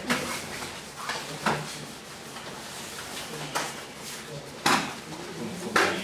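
About six irregular thuds and slaps of bodies and feet striking the mats during aikido practice, as partners throw and take falls; the loudest two come near the end, with faint voices in the background.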